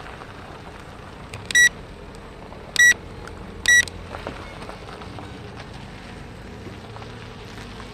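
Three short, high electronic beeps, a little over a second apart, over a steady low background hiss.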